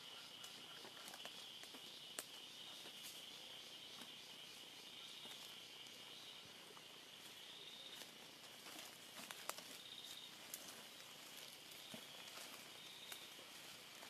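Faint, steady high-pitched insect chorus in forest, swelling and fading in places, with a few sharp isolated clicks.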